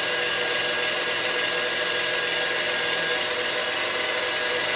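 KitchenAid stand mixer running steadily with its wire whisk beating cream in a steel bowl, a constant motor whine over the whirr of the whisk. The cream is close to fully whipped.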